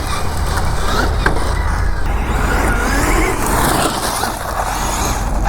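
Losi 6IX RC car's electric motor whining as it runs, the pitch rising and falling as it accelerates and lets off.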